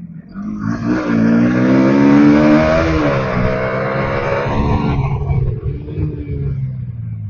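Motorcycle engine accelerating hard. The revs climb, drop at a gear change about three seconds in, climb again, then ease off and fade near the end.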